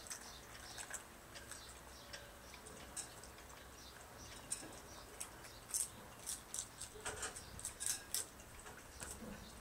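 River otter chewing a Dungeness crab, the shell crunching and cracking in irregular sharp clicks that come thicker and louder after about five seconds.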